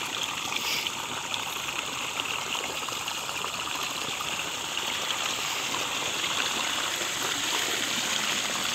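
Water running steadily out through a drainage outlet into a mesh fish net, a continuous rushing that grows a little louder in the second half.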